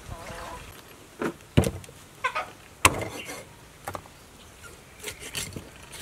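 Knocks and handling noises as a whole raw chicken is moved about on a thick round wooden chopping block. Two sharp knocks about a second and a quarter apart are the loudest, among several softer taps and clatters.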